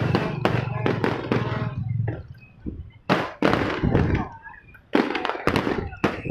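Fireworks going off in a rapid series of sharp bangs and crackles. The bangs thin out about two seconds in, then come again in a second volley.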